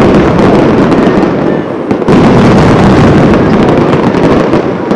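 Aerial fireworks display: a loud, dense, continuous barrage of shell bursts and crackle, easing briefly just before two seconds in, then coming back at once with a fresh volley.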